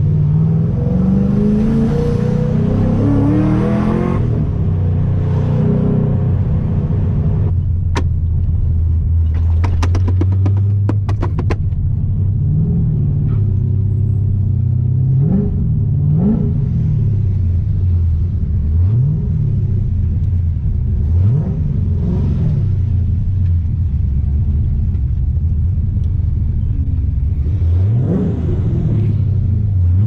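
Nissan 350Z's 3.5-litre V6 heard from inside the cabin: it climbs in pitch as the car pulls away, then runs low and steady. A quick cluster of clicks comes about ten seconds in. In the second half there are several short throttle blips, each a quick rise and fall in revs.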